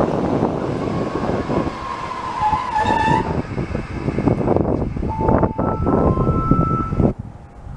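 Electric locomotive of ZSSK class 240 and its passenger coaches rolling slowly by: a steady rumble of steel wheels on rails, with high metallic squeals about a second in and again around five to seven seconds. The sound drops off sharply near the end.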